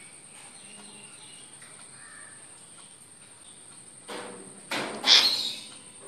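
African grey parrot giving one loud squawk about five seconds in, after a few seconds of low background hiss.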